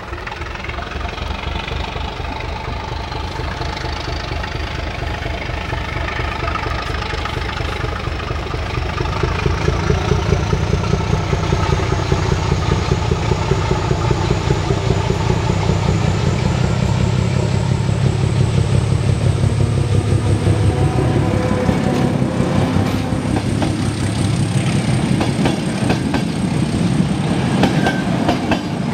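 Czech Railways class 749 diesel locomotive approaching and passing at speed with its train, the engine's steady throb growing louder throughout, a thin high whine rising slowly in pitch above it. Near the end the coaches roll past close by, with wheel clatter over the rail joints.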